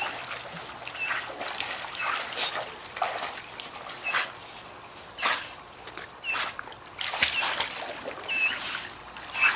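Dog swimming in a pool, paddling and splashing the water in irregular bursts.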